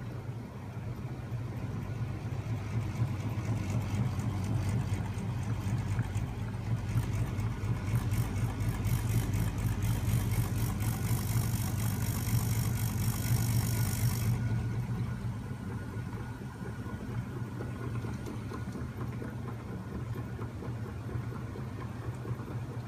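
Homemade magnet-driven flywheel machine running, its spinning flywheel, shaft and coupled 24 V scooter motor giving a steady hum. A high hiss joins about seven seconds in and cuts off suddenly about halfway through.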